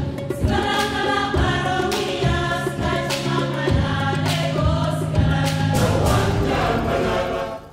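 Background music with choir-like sung voices and a steady beat, fading out at the very end.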